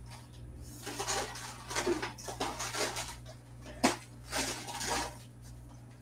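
Kitchen handling sounds: a few short scrapes and rustles, one sharp knock a little past the middle, and another scrape after it.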